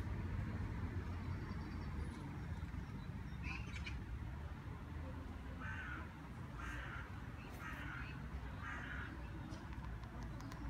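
An animal calling four times, short harsh calls about a second apart, over a steady low rumble.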